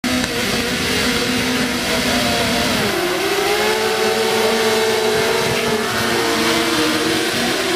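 F600 autograss cars' 600cc motorcycle engines revving together on the start line, then accelerating hard off the grid about three seconds in, their pitch climbing as the pack pulls away.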